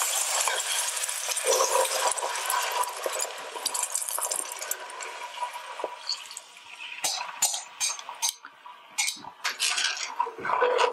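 Beef broth poured into a hot skillet of sautéed onions, sizzling and hissing as it deglazes the pan, dying down over about six seconds. Then metal tongs scrape and clink against the pan bottom several times.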